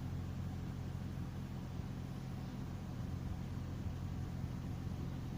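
A steady low droning hum made of several pitches, unchanging throughout, over a faint even hiss. It is the unexplained weird noise heard up on the mountain.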